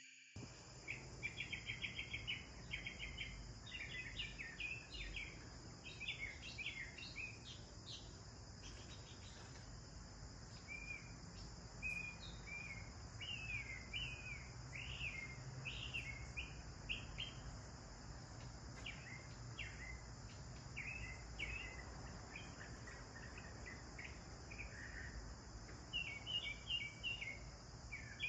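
House sparrows chirping in quick runs of short notes throughout, over a steady high-pitched insect buzz.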